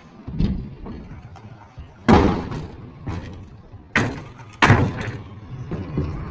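Stunt scooters banging on skatepark ramps: a few hard thuds and clacks of decks and wheels landing, the loudest about two seconds in and two more close together between four and five seconds in.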